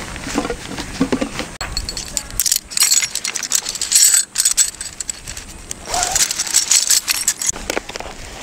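Fabric stuff sacks and bags rustling and crinkling as camping gear is stuffed into a backpack. It comes in two stretches, one about two seconds in and one about six seconds in.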